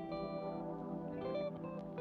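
Background music led by a plucked guitar, with echo and other effects on it.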